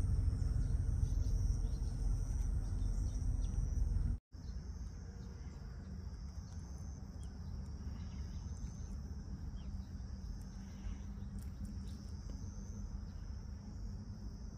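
Crickets chirring in a steady high-pitched drone. For the first four seconds a heavy low rumble lies under it. The rumble cuts off abruptly, with a brief dropout, leaving the chirring over a softer hum.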